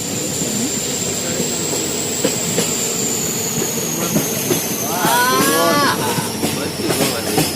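Train running on the rails: steady rumble and irregular rattle of wheels over the track, with a thin high whine slowly falling in pitch. A voice calls out briefly about five seconds in.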